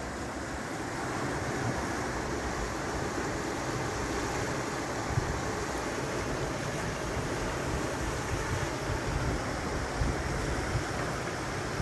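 Steady outdoor rushing noise, with a few brief knocks: one about five seconds in and two more near the end.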